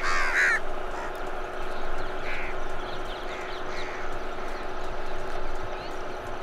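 Crows cawing, several short harsh calls, the loudest right at the start and fainter ones a few seconds later, over a steady background hum.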